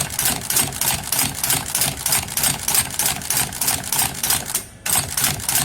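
Rulo kılçık machine running with its newly fitted blade: a fast, even clatter of about six strokes a second. It stops for a moment near the end, then starts again. This is the test run after the blade change.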